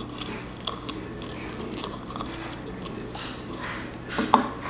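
Quiet handling noise of a soldering iron and wires being worked against a metal lamp base: light scattered ticks and clicks over a low steady hum, with a louder short sound and a sharp click near the end.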